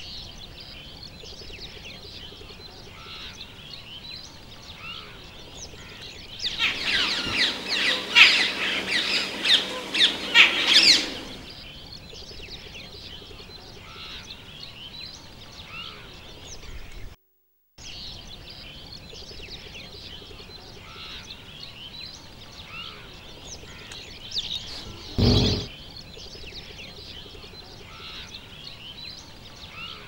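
Many small birds chirping steadily, with a loud burst of dense calling from a flock lasting about five seconds, a quarter of the way in. A short low thump comes about three-quarters of the way through.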